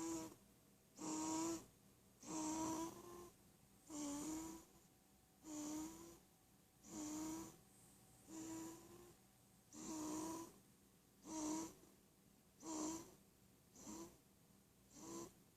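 Snoring: short, squeaky-pitched snores with a breathy hiss, about one every second and a half in a steady rhythm.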